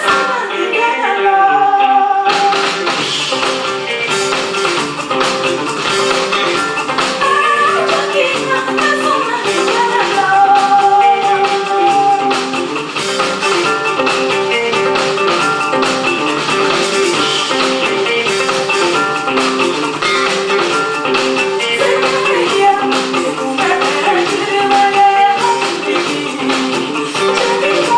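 Live band music with a woman singing over guitar accompaniment. About two seconds in, the fuller band sound comes in, filling out the highs.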